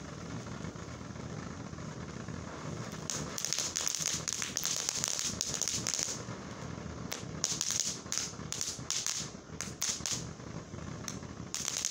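Jellybeans ground fountain firework hissing as it sprays sparks, then from about three seconds in crackling in dense runs of sharp pops, with a couple of short lulls.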